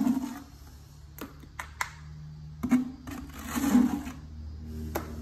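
Wet thinset mortar being scooped and scraped out of a plastic bucket by hand: a few short rasping scrapes with sharp clicks between them, over a faint low steady hum.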